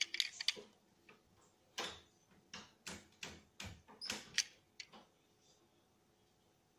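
Handling noise from a small die-cast toy car turned over in the fingers close to the microphone: irregular clicks and scrapes that stop about five seconds in.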